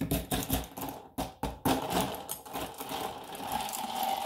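Ice cubes being stirred with a long stirrer in iced coffee in a glass mason jar. The ice clinks and knocks against the glass in quick separate strikes, then about two seconds in the stirring speeds up into a continuous rattling swirl.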